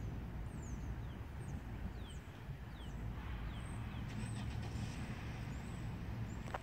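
A steady low engine rumble, with short, falling bird chirps scattered over it.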